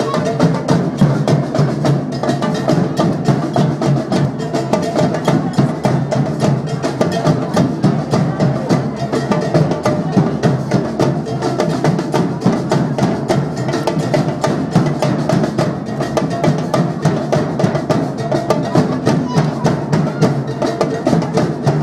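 Batucada drum band playing a fast, dense, unbroken rhythm on large bass drums (surdos) and other drums.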